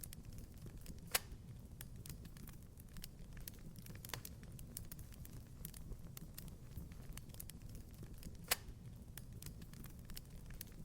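Wood fire crackling in a fireplace: a soft low rumble with scattered small ticks, and two sharper pops, one about a second in and one near the end.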